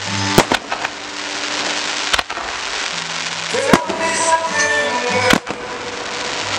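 Aerial firework shells bursting in a series of sharp bangs, about five over a few seconds at uneven gaps, with music playing throughout.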